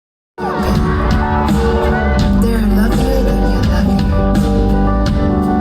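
A band playing live, cutting in abruptly about half a second in, with drums and a singing voice over the instruments.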